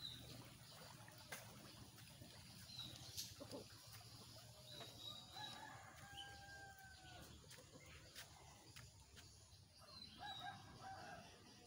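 A rooster crowing faintly, one long call about five seconds in and a shorter one near the end, with a few brief high bird chirps.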